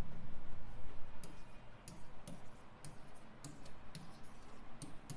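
Marker pen writing on a board: a run of short, sharp, irregular clicks and taps as the tip strikes the surface stroke by stroke, starting about a second in.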